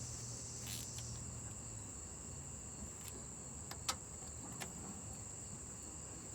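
Faint steady high-pitched chirring of crickets, with a few sharp clicks, the loudest about four seconds in.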